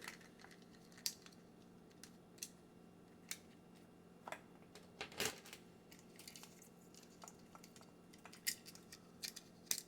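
Small plastic toy shelving pieces being handled, giving scattered faint clicks and taps, a few close together near the end, over a low steady hum.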